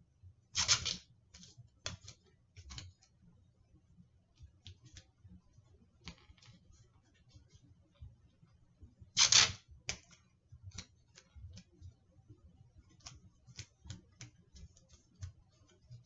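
Masking tape being torn off the roll twice, each a short rip of about half a second, about a second in and again about nine seconds in, with light clicks and rustling of handling in between.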